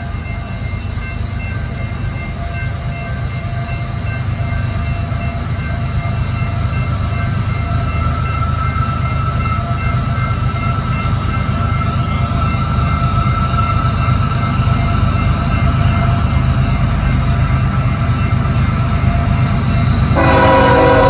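Approaching freight train's lead GE diesel locomotives working hard at full throttle (notch 8) up a grade, a steady low rumble that grows louder as they near. About a second before the end, the lead locomotive's Nathan K5HL air horn sounds a loud chord.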